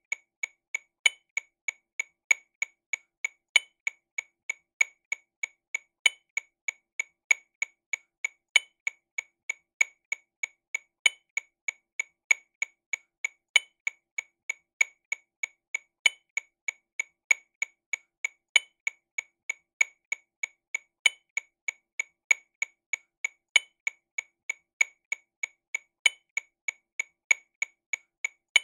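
TAMA Rhythm Watch RW200 metronome sound clicking sixteenth notes at 48 BPM, about three clicks a second. The first click of each beat is louder, and every fourth beat an even louder accent marks the start of the bar.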